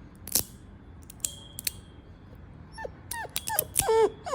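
Metal fidget slider snapping open and shut with sharp clicks, one followed by a thin high ringing tone like a tuning fork. From about three seconds in, a dog whimpers and yips in a quick run of short cries, each falling in pitch, louder than the clicks.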